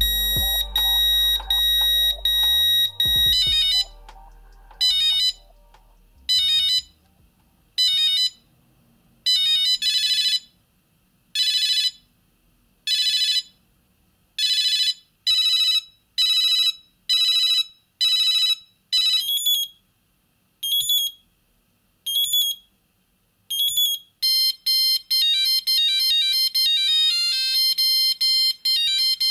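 Siemens C25 mobile phone's built-in monophonic ringtones, played one after another. First a short beeping tune, then repeated beeps about every one and a half seconds, then short gliding chirps, and in the last few seconds a fast beeping melody.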